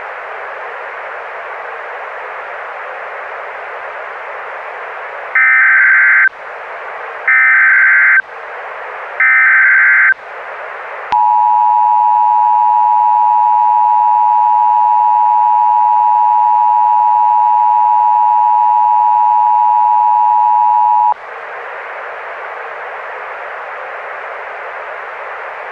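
Emergency Alert System broadcast audio over a steady radio static hiss: three short screeching bursts of the digital SAME header, then the two-tone EAS attention signal held for about ten seconds, cutting off back to static.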